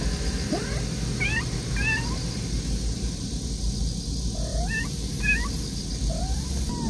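Mother cat calling her kitten with a series of short, rising chirp-like meows, a few at first, then a pause of about two seconds, then several more, over a steady low rumble.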